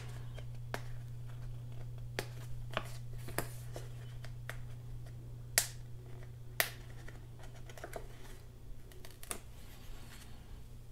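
Crisp clicks and crackles of a paper sticker sheet being handled and an adhesive hinge sticker peeled off its backing, with two sharper snaps about halfway through, over a steady low hum.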